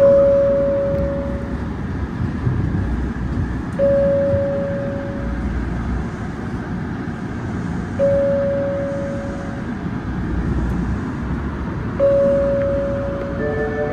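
Low rumble of an Osaka Metro 30000 series subway train running, with a single-pitch chime that dings four times, about every four seconds, each ding fading away over a second or so.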